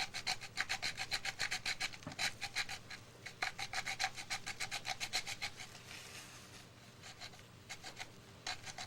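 Coarse file rasping on a plastic model submarine hull in quick back-and-forth strokes, about four or five a second, enlarging the opening where the propeller shaft's running gear enters. The strokes break off briefly about three seconds in, grow fainter past the middle, and a few more come near the end.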